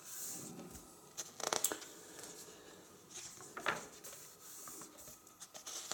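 Hands rubbing and handling the paper pages of an open hardcover book, with a few short rustles and crinkles, the clearest about one and a half and three and a half seconds in.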